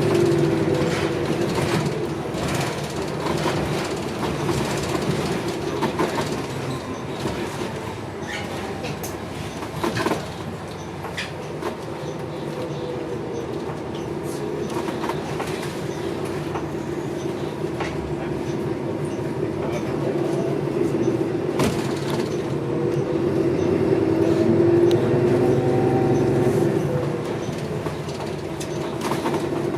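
Inside a TTC city bus under way: engine and drivetrain hum with rattles and knocks from the body. The noise swells near the start and again about two thirds of the way through, as the bus picks up speed.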